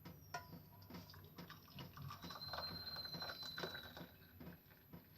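Turmeric tea being strained from the pan into a cup: a faint trickle of pouring liquid from about two seconds in, lasting a couple of seconds, among light clinks and taps of the pan and strainer.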